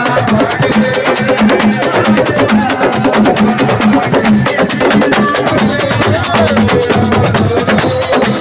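Live sico (assiko) band music: fast, dense drumming in a steady rhythm, with voices over it.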